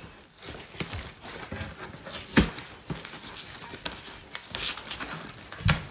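Cardboard box flaps and plastic-bagged clothing rustling and crinkling as a parcel is unpacked, with a sharp knock about two and a half seconds in and a dull thump near the end.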